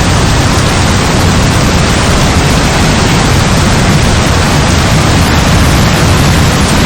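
Heavy rain falling steadily, a loud, even wash of sound with no thunder or single drops standing out.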